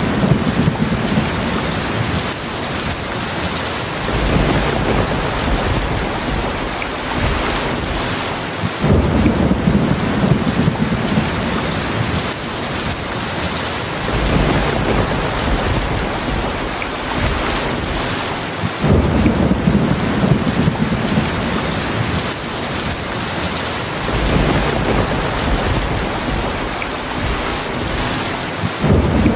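Heavy steady rain with rolls of thunder: low rumbles start suddenly about nine seconds in, again about ten seconds later, and once more near the end.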